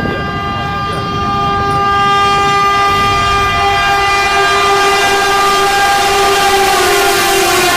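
Train horn blowing one long continuous blast over the rumble of a moving train. It gets louder about two seconds in and drops slightly in pitch near the end.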